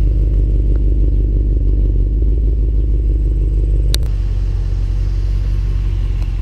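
Ram Power Wagon pickup's V8 engine idling close to the exhaust, a steady low rumble. About four seconds in there is a click, and the idle carries on a little quieter and steadier.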